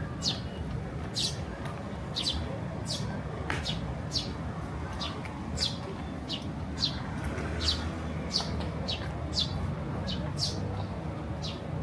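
A bird repeating a short, high, falling chirp, about one and a half calls a second, over a steady low background noise.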